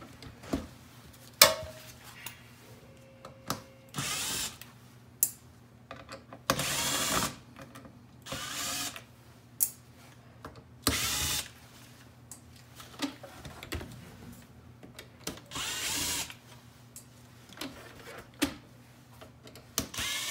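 Power drill-driver backing out small Phillips screws from a car navigation unit's housing. The motor runs in five short bursts, each under a second long, with small clicks and taps of the screws and parts in between.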